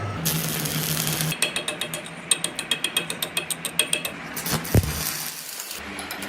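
Rapid mechanical clicking, like a ratchet, about seven clicks a second for roughly three seconds, after a brief burst of hiss and hum; a single low thump follows near the end.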